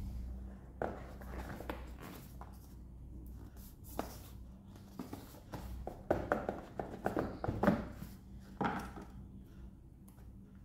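Cardboard retail box of a Samsung Galaxy Tab A7 Lite being handled and its lid lifted off: scattered taps and scrapes, with a quick run of scrapes and clicks about six to eight seconds in.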